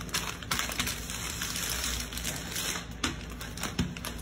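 A used microwave popcorn bag crinkling and crackling as hands open it out and smooth it flat on a table, with a few sharp clicks in the rustle.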